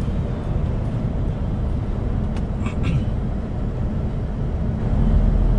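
Lorry driving on the road: steady low engine and road rumble, growing louder about five seconds in.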